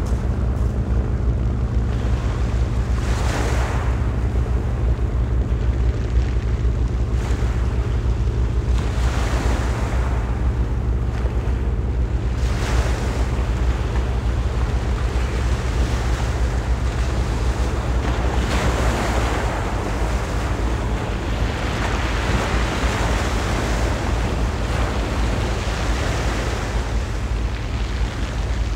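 Small waves washing onto a pebble beach, their hiss swelling and falling every few seconds, over a steady low drone.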